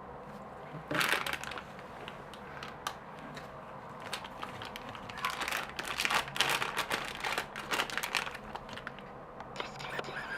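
Packaging crinkling and crackling as it is handled and opened, in irregular bursts, loudest about a second in and again over several seconds in the middle.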